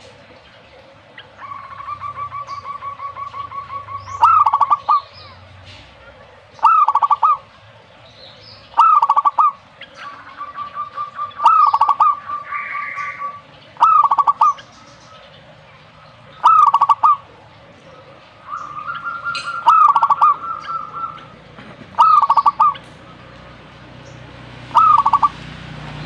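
Zebra dove cooing: about nine loud, short coo phrases repeated every two to three seconds, with long rapid staccato trills between some of them.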